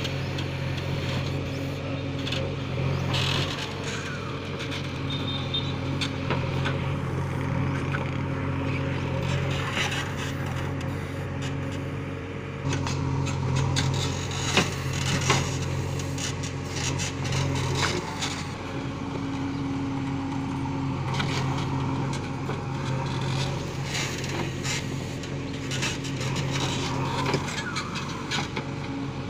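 JCB 3DX backhoe loader's diesel engine running steadily under working load as the backhoe digs and dumps soil, the engine note stepping up about halfway. Scattered clanks and scrapes of the bucket and arm, with two sharp knocks near the middle.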